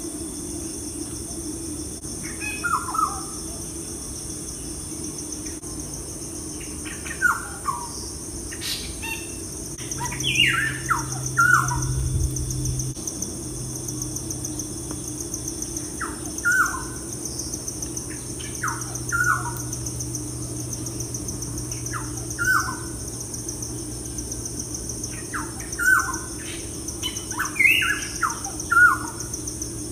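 Birds chirping: short, falling calls in ones, twos and threes every few seconds, over a steady high-pitched hiss.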